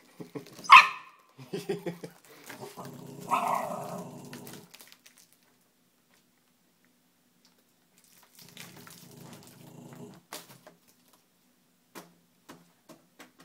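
A Shiba Inu barking and growling in fear at a balloon: one sharp, loud bark about a second in, a longer growling bark a couple of seconds later, and after a pause another low growl. A few light ticks near the end.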